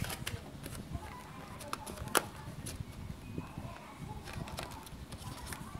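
Hands handling a smartphone box's packaging: cardboard inserts and a boxed earphone pack being tapped, slid and lifted, making a scatter of light clicks and knocks, the sharpest about two seconds in.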